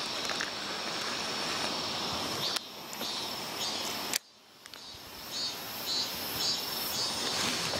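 Insects calling in summer vegetation: a steady high buzz with evenly repeating pulsed chirps, over a broad outdoor hiss. The sound drops away abruptly a little past four seconds in, then builds back up.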